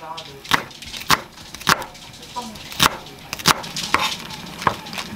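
Chef's knife chopping green onion and then cabbage on a wooden cutting board: about seven sharp knocks of the blade striking the board, spaced roughly half a second to a second apart.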